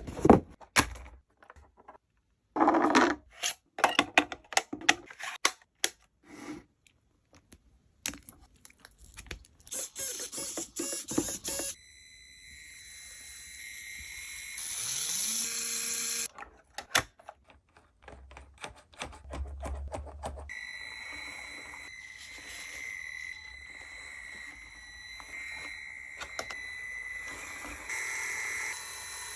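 Clicks and rattles from a small plastic toy being handled, then a small electric motor whining steadily, briefly rising in pitch at first, later running steadily through the second half.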